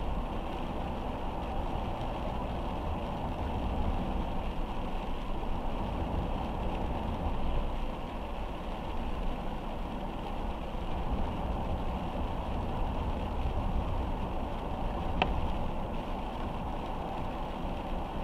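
Car driving in steady rain: a continuous rush of road and rain noise, even throughout, with one sharp click about fifteen seconds in.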